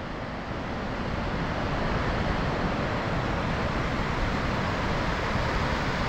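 Steady rush of a river and waterfall running through a rock canyon, fading in over the first couple of seconds, with wind buffeting the microphone.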